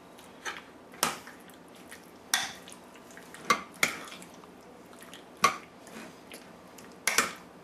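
Metal spoon clinking against a glass bowl while stirring chicken pieces through mayonnaise: about eight sharp clinks at irregular intervals, some in quick pairs.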